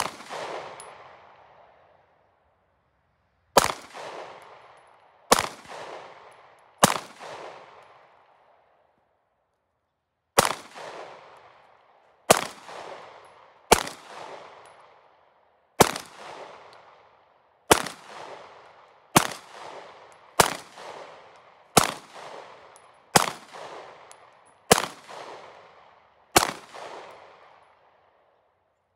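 Fifteen 9mm pistol shots from a Glock 43X, fired one at a time at a steady, deliberate pace about one and a half to two seconds apart, with a pause of about three seconds after the fourth. Each report trails off in a short echo. The pistol cycles and feeds every round without a malfunction.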